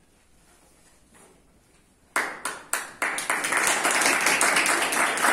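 Quiet room for about two seconds, then a few scattered claps that swell quickly into steady applause from a group of people clapping their hands.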